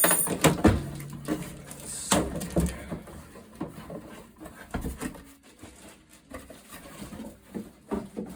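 Drum kit parts and packaging being handled: a string of knocks, clicks and rustles. Near the start, a low tone rings on for about a second after one knock.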